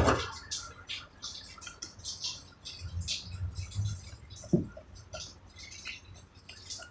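Irregular light scraping and clicking from hand work on a door lock being screwed back together, with one sharper knock about four and a half seconds in.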